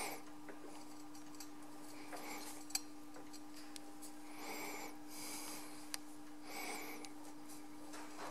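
Metal lathe turning slowly, winding steel spring wire onto a tapered mandrel to form a valve spring. A soft rasping swish comes round about every two seconds over a steady low hum, with two sharp clicks in the middle.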